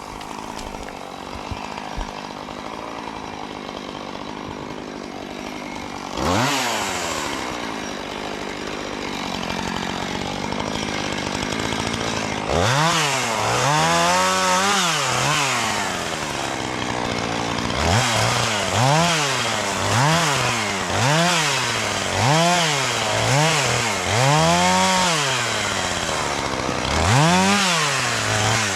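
Two-stroke chainsaw running, its engine revved up and down again and again. First a steady drone, then long rising-and-falling revs, then a run of quick throttle blips about one a second, and one more long rev near the end.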